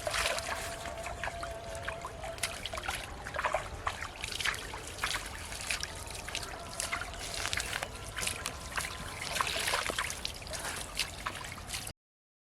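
Water trickling and splashing, crossed by many small irregular clicks and knocks. It cuts off suddenly near the end.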